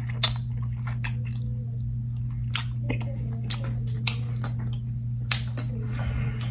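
Close-miked mouth sounds of a person chewing a chicken sandwich: scattered wet clicks and smacks, the sharpest near the start, over a steady low hum.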